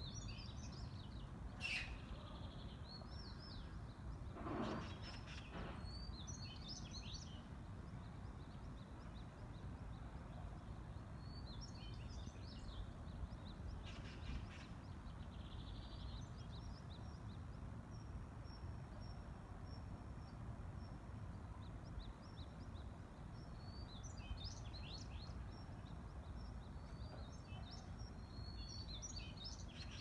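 Small birds chirping in short scattered bursts of high calls over a faint, steady low rumble of outdoor background noise, with one brief louder rushing noise about five seconds in.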